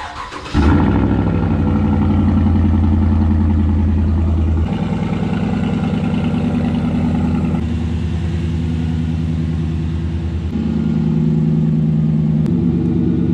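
2016 Chevrolet Silverado's exhaust through a Borla ATAK cat-back system, running loud and steady with a deep note. It comes in sharply about half a second in, and its pitch and loudness shift abruptly several times.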